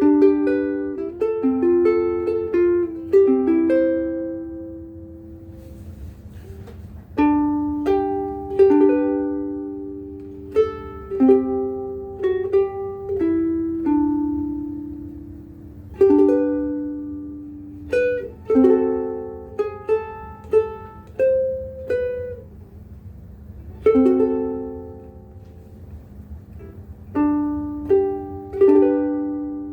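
Famous FN-180 soprano ukulele being played, with single plucked notes and chords ringing and dying away and a couple of short pauses. It is strung with worn-out Uke Logic Pink strings that are notched from heavy playing.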